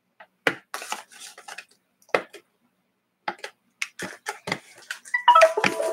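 Hands handling a cardboard toy box: scattered taps, knocks and scraping clicks as it is turned and its top is worked at. About five seconds in comes a louder cluster of knocks with a brief pitched ringing.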